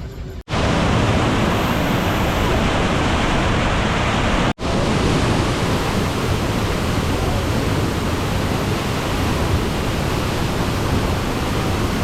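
A waterfall's rushing water, loud and steady, broken by two very short gaps: one about half a second in and one about four and a half seconds in.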